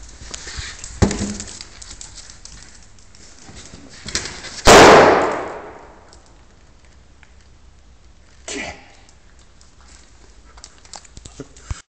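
A rubber balloon bursting with one loud bang, its echo dying away over about a second. A sharp knock comes shortly before it, and a short, quieter noise a few seconds after.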